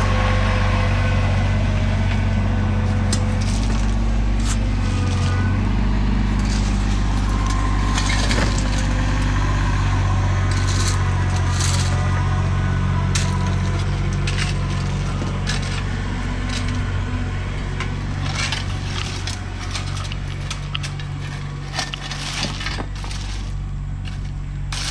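Tractor engine running steadily while gravel is tipped and spread, with many sharp clatters of stones. The engine grows a little quieter in the last few seconds.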